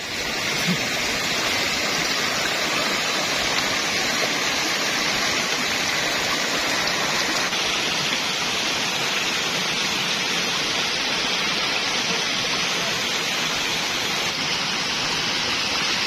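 Steady rushing of white water: a rocky stream's rapids below a tall waterfall, an even, continuous hiss of water over boulders.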